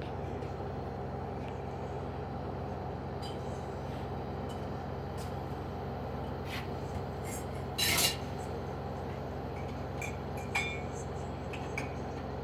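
LG washing machine in its spin cycle on the cotton programme set to 1400 rpm, the drum and motor running with a steady hum. A few brief clinks sound over it, the loudest about eight seconds in and a smaller one about ten and a half seconds in.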